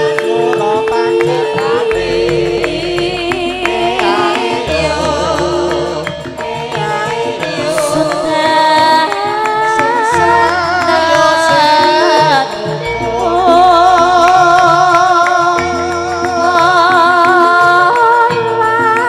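A sinden (female Javanese singer) singing a long, wavering vocal line with heavy vibrato into a microphone, over a Javanese gamelan (karawitan) ensemble. The gamelan plays sustained metallic tones and deep low notes that change every couple of seconds.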